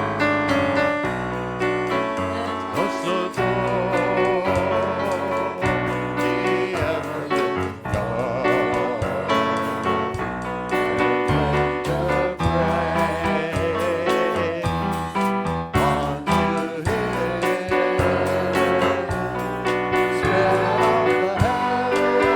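Upbeat worship music with keyboard, bass and a steady beat, with singing over it.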